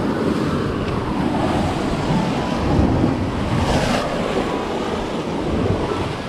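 Sea surf breaking and washing against the rocks at the foot of a cliff, with wind buffeting the microphone. There is a brighter rush about four seconds in.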